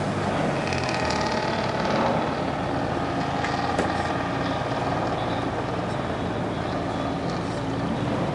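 Engines of a line of Alfa Romeo cars lapping a race circuit, several cars passing in turn, with the sound swelling briefly about two seconds in.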